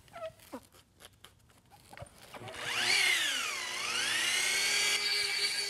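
A small handheld power polisher with a foam pad spins up about two and a half seconds in. Its whine sags briefly in pitch, recovers, then holds steady as it buffs medium-grade swirl remover polish on a plastic headlight lens.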